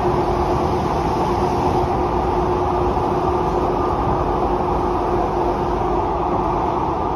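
Cabin running noise of a Kawasaki–CSR Sifang C151A MRT train travelling at steady speed: a continuous low rumble from the wheels and running gear, with a steady hum held on one pitch.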